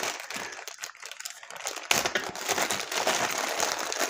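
Thin plastic zip-lock bag crinkling as it is handled and pulled open, louder from about halfway through.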